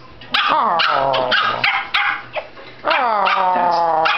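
Dogs vocalizing in play: several short sharp barks and yips, then a drawn-out whining howl near the end that slides down in pitch and then holds.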